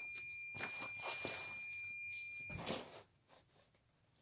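Paper rustling and sliding as a page of a large paperback coloring book is turned and smoothed flat by hand, with a thin steady high tone underneath; both stop about two and a half seconds in.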